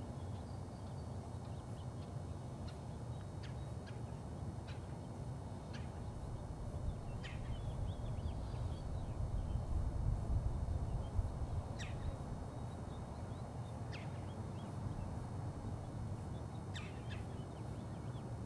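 Birds give about ten short, high calls scattered through a steady low rumble, which swells a little about halfway through.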